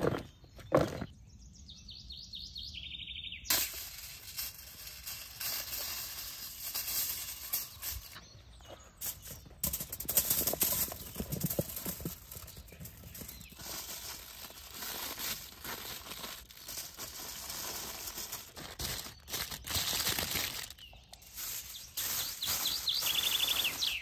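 Chunks of seasoned vegetables knocking as they are tossed in a plastic bowl, then tumbling out onto a sheet of aluminium foil, and the foil crinkling as it is folded over them.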